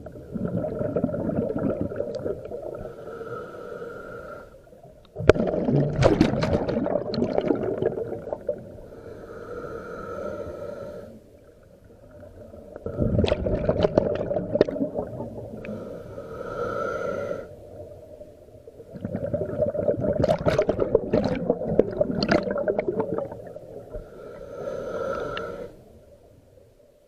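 Scuba regulator breathing heard underwater: slow cycles of a hissing inhale with a faint whistle, each followed by a loud crackling rush of exhaled bubbles. Three exhales come about seven seconds apart.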